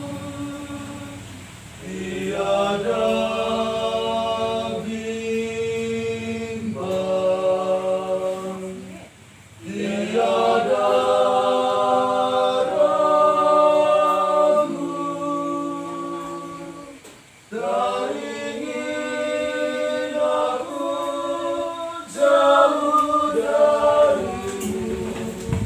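A small group of young men and women singing together unaccompanied from song sheets, in long held chord phrases with two short breaks between them.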